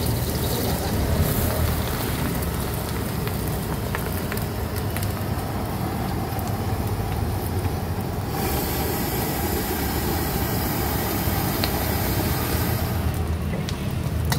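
Steady roar of a street-stall gas burner under a wok, with a brighter frying hiss that comes up for about five seconds past the middle.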